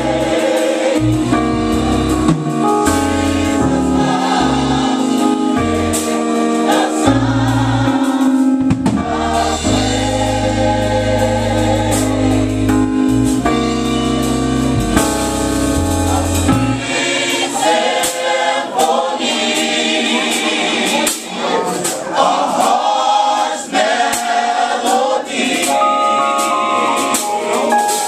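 Gospel choir singing with band accompaniment. About two-thirds of the way through the low bass backing drops out, leaving mostly the choir's voices.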